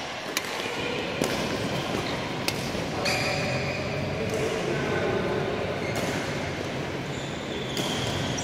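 Badminton rackets striking the shuttlecock in a doubles rally: sharp cracks with a short echo, four in the first three seconds, then two more spaced out later. Faint voices murmur in the hall behind them.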